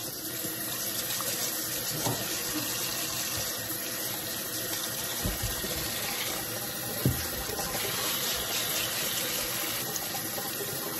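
Kitchen tap running steadily into a sink while dirty potatoes are scrubbed by hand under the stream. A few short knocks sound over the water, the loudest about seven seconds in.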